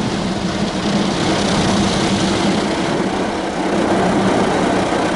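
Automatic car wash side brushes spinning and scrubbing against the car's body, heard from inside the cabin: a loud, steady washing noise with a low hum underneath.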